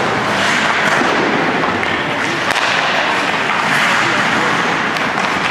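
Echoing ice-rink noise: a steady scraping hiss of skate blades on the ice, with a few sharp clicks of sticks and puck.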